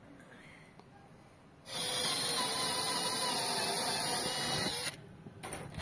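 Stanley cordless drill running steadily for about three seconds, then briefly in short bursts near the end.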